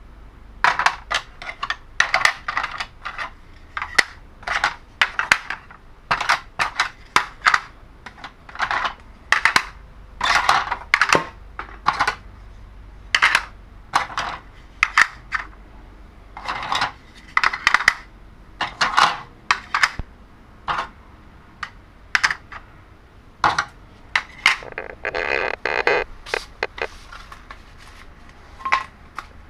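Hard plastic game tiles and track pieces clacking and clattering as they are handled and set into a plastic board tray, a steady run of sharp clicks. Toward the end comes a longer rattling scrape lasting about two seconds.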